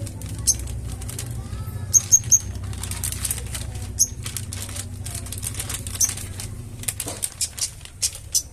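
Flowerpecker giving short, sharp, high-pitched chips at irregular intervals, over a low steady hum.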